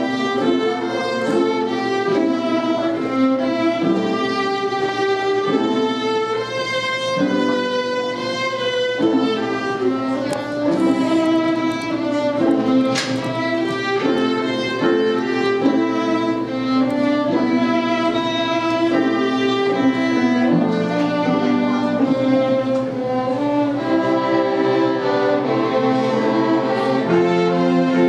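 Small string ensemble, mainly violins, playing a piece live: several bowed parts sounding together in sustained, overlapping notes.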